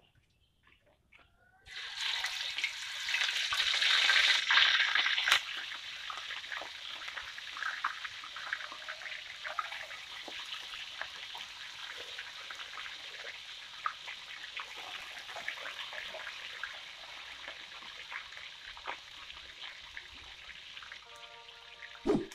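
Pieces of mackerel tuna (tongkol) going into hot oil in a wok: a sudden loud sizzle about two seconds in, strongest for the first few seconds, then settling into a steady frying sizzle with scattered crackles and spits.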